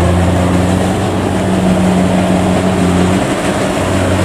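Kubota DC70 combine harvester's diesel engine running steadily and loud while the machine works through deep, soft mud at the field's flooded edge. About three seconds in, the low engine note briefly drops out, then comes back.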